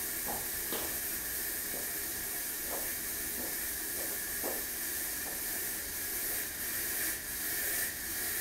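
Fog machine running: a steady hiss with a faint high whine as fog is pushed through a homemade ice-cooler fog chiller.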